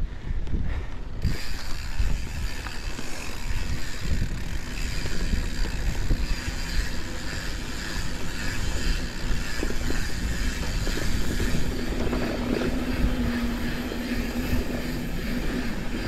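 Santa Cruz 5010 mountain bike rolling down a dusty dirt singletrack: tyre rumble and the frame and parts rattling over small bumps, with a steady hiss from about a second in. A low steady hum joins for a few seconds near the end.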